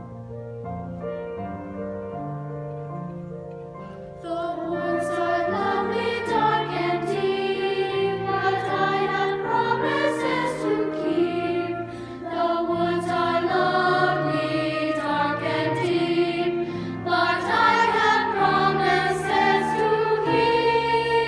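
A choir singing a holiday piece. It starts softly on held chords and grows louder and fuller about four seconds in.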